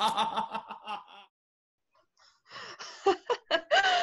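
People laughing. A pulsing laugh fades out over the first second, then after a short pause come short snickers and giggles from about two and a half seconds in.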